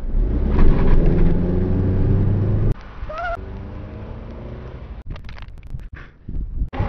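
Car engine revving loudly for nearly three seconds, then cutting off abruptly, followed by a brief rising squeal and quieter rustling.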